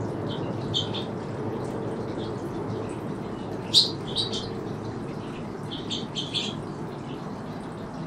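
Small finches chirping in short, high, scattered calls, with the loudest pair around four seconds in and a quick cluster about two seconds later, over a steady low background rumble.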